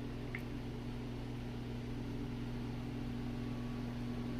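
Steady low background hum with a single faint click shortly after the start.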